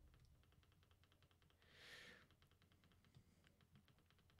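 Faint, rapid clicking of a CONTEC SP80B digital spirometer's button, pressed over and over, several times a second, to step the weight setting up. A soft breath is heard about two seconds in.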